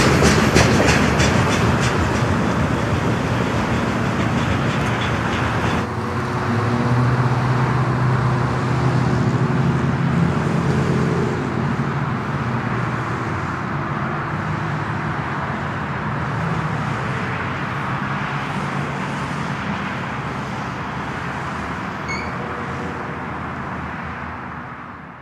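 Freight train rolling past: wheel clicks over the rail joints fade out in the first couple of seconds, then a steady diesel locomotive drone comes in about six seconds in and slowly dies away.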